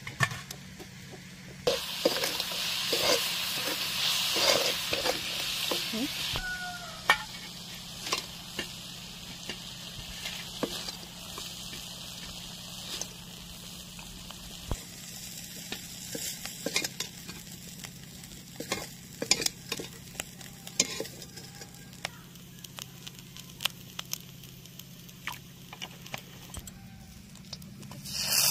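Snail meat frying in oil in an aluminium karahi over a wood fire. About two seconds in a loud sizzle starts and lasts about four seconds, then it settles to a quieter sizzle with scattered clicks of the metal ladle against the pan.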